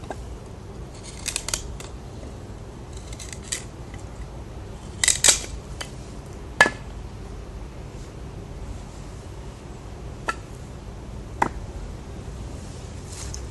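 Spyderco Paramilitary 2 folding knife cutting into wood in short, separate strokes, with sharp clicks in between. The loudest strokes come around the middle.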